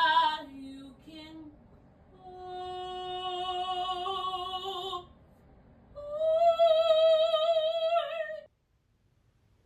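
Voice singing long held notes with a slight vibrato: a short note at the start, a long lower note, then a higher long note, and the sound cuts off suddenly near the end.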